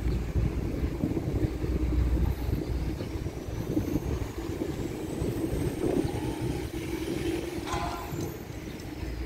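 A heavy diesel truck engine running with a steady low rumble, with a short higher-pitched sound about eight seconds in.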